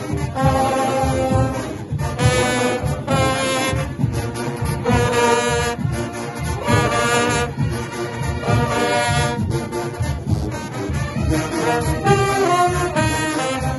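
Junkanoo brass section of trumpets and larger horns playing loud, repeated riffs in phrases about a second or two long, with rapid low beats underneath.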